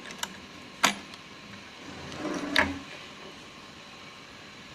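Small sharp clicks and a short scrape of a screwdriver working against the metal parts and screws of an opened sewing machine, loosening a part for cleaning.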